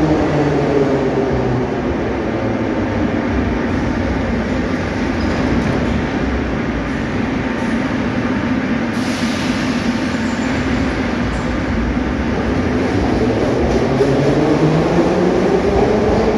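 Soviet-built 81-717/714 'Nomernoy' metro train's traction motors whining. The whine falls in pitch over the first few seconds as a train slows. From about twelve seconds in, a rising whine as the train pulls out of the station. A brief hiss comes about nine seconds in.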